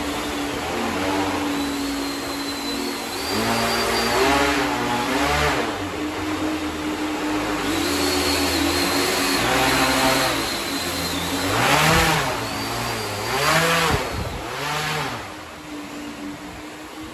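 Homemade 12,000 W electric hovercraft's electric motors and fans running under a varying throttle, the pitch rising and falling several times as it turns and pivots. A high whine comes and goes above it.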